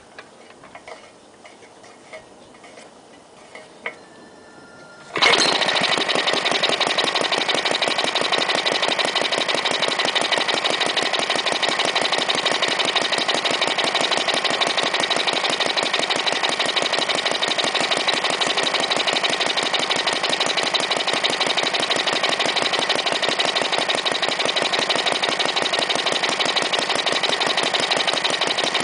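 A 1936 Briggs & Stratton WM single-cylinder engine. After a few light clicks, it starts about five seconds in and runs steadily.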